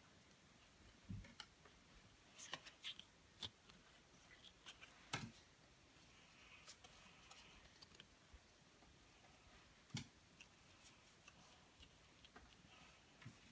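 Quiet handling sounds of trading cards and their foil pack: scattered soft clicks, taps and rustles, with a few sharper single knocks.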